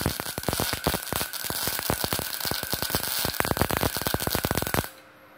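A 450-watt MIG welder run with CO2 gas, welding a test bead: a steady, irregular crackle of many sharp pops that stops suddenly about five seconds in. At voltage position 7 and about 90 amps the welder finds the arc not yet right and raises the amperage.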